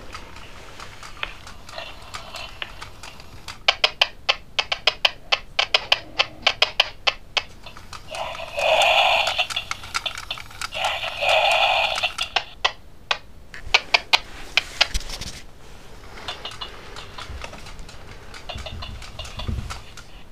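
An animal calling twice, each call loud and held for a little over a second, between runs of quick sharp clicks or taps.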